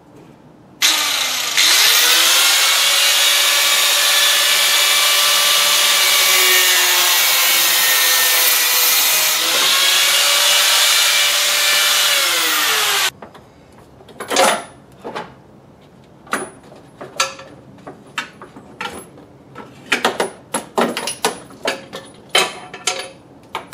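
An electric power tool runs for about twelve seconds: its motor spins up with a rising whine, dips and picks up again partway through, then winds down. Scattered clanks and knocks of metal parts and tools being handled follow.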